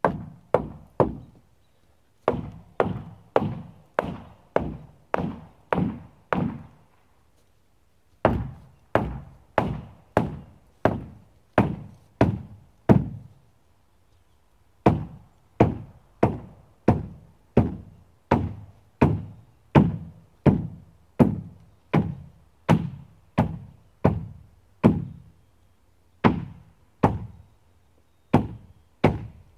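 Hammer blows driving a lineal 2x4 into the channel of a SIP wall panel: a long series of loud knocks on wood, about one to two a second, in runs broken by a few short pauses.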